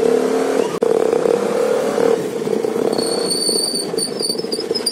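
Exhaust note of a Bajaj Pulsar 150's single-cylinder four-stroke engine, heard right at the tailpipe while riding. The muffler carries a homemade add-on tip meant to give a sportier sound. It runs steadily with a brief break a little under a second in, and a faint high whine joins about three seconds in.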